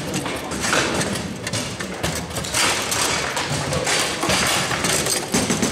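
Foosball table in play: irregular sharp knocks and thuds as the ball is struck by the player figures and hits the rods and table walls.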